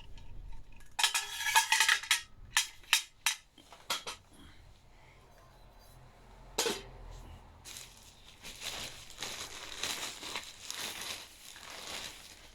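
Metal parts of a Swiss Army volcano kettle clinking and knocking against each other as they are handled. There is a quick run of clinks in the first few seconds and one more knock past the middle, then a softer rustling.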